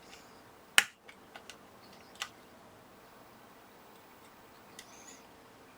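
A single sharp click about a second in, then a few fainter ticks and a brief soft hiss near the end, over faint room tone: small tools being handled during desoldering work on a circuit board.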